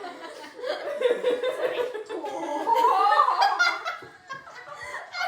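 Several girls laughing and giggling together, loudest about three seconds in.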